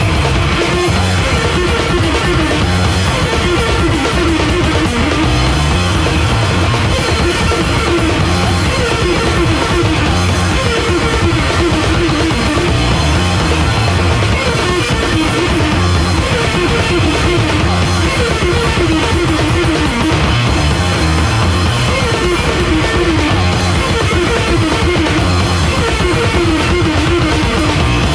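Loud, dense noise-rock from a bass-and-drums duo: heavily distorted bass guitar churning a repeating riff over fast, relentless drum kit playing, without a break.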